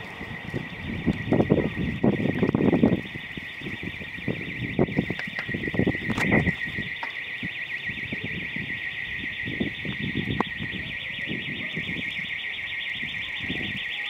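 An alarm ringing continuously: a steady, high, rapidly pulsing tone that does not let up. Low rumbles on the microphone in the first three seconds.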